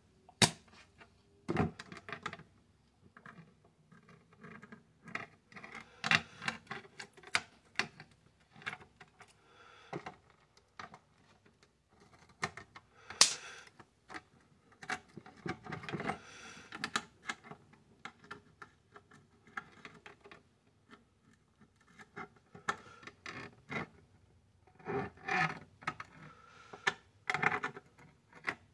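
Irregular sharp crackling clicks and scratches as metal probes are touched to and dragged across a burnt circuit board, coming in uneven bursts with a denser crackling cluster near the end.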